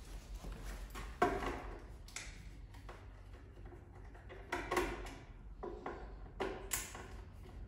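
Several separate sharp plastic clicks and knocks as a weatherproof outdoor double socket's hinged enclosure and cover are handled, the sharpest about a second in.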